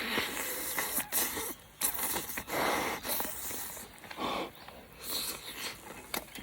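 Someone eating a toasted ham and cheese sandwich: irregular crunching bites and chewing in short noisy bursts.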